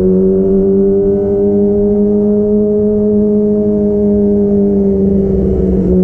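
2022 Kawasaki ZX-25R's 250 cc inline-four running at steady revs through an aftermarket DX Generation Pro Race exhaust with the dB killer removed. The note rises slightly, then eases back, with a brief wobble near the end.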